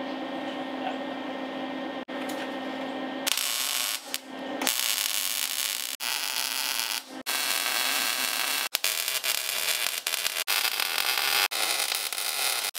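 A steady hum, then from about three seconds in a MIG welder's arc crackling and sizzling on steel, in several short welds that cut off and restart.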